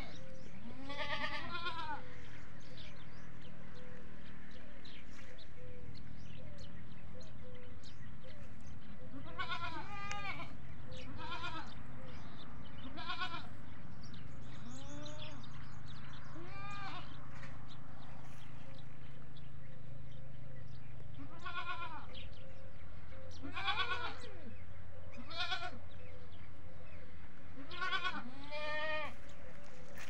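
Desi goats bleating: about ten separate bleats, each rising and falling in pitch, some close together in pairs, over a steady low hum.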